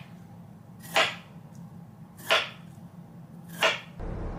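Kitchen knife slicing through a soft red-wine-poached pear onto a plastic cutting board: four short swishing strokes about a second and a half apart.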